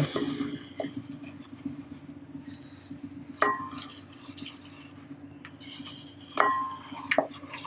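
Chicken drumsticks being turned in marinade in a glass bowl by a hand in a plastic glove: faint wet handling, with sharp clinks against the glass bowl that ring briefly, once about three seconds in and twice near the end.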